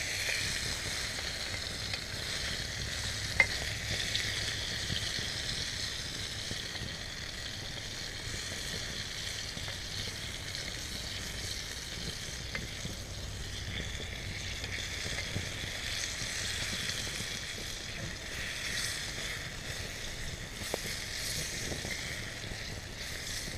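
Sausage slices sizzling steadily in a small frying pan over an open campfire, turned now and then with a wooden spatula. One sharp tap about three and a half seconds in.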